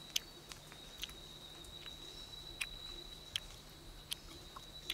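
Faint rainforest ambience: a steady high-pitched insect tone, with about half a dozen sharp clicks scattered through it.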